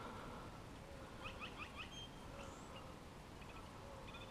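Quiet outdoor background with a bird calling: a quick run of short chirps about a second in, then a single brief high note.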